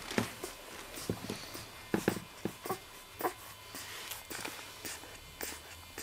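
Miniature Labradoodle puppies suckling from their mother: irregular soft clicks and smacks, several a second.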